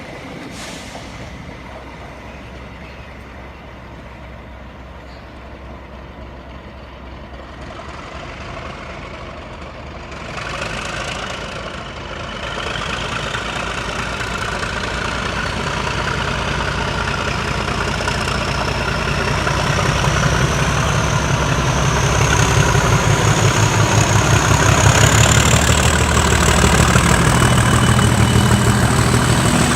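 Class 37 diesel locomotive 37516's English Electric V12 diesel engine powering up: a low, pulsing engine rumble grows steadily louder while a turbocharger whine climbs slowly in pitch from about ten seconds in.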